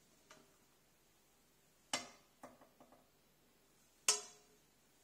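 Kitchen tongs knocking against a nonstick frying pan while lifting chicken slices out: a sharp clink about two seconds in, followed by a few lighter taps, and another sharp clink about four seconds in.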